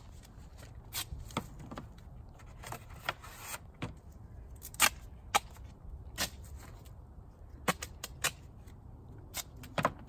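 Duct tape and foam board insulation being handled on a beehive: scattered sharp clicks and taps at irregular intervals, with a short rasping rustle about three seconds in, over a low rumble.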